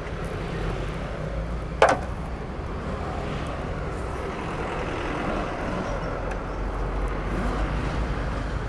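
Steady low vehicle rumble, with one sharp click about two seconds in.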